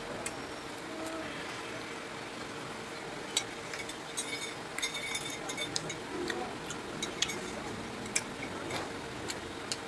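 Metal fork clinking and scraping against a plate in scattered light taps, over a steady low background hum.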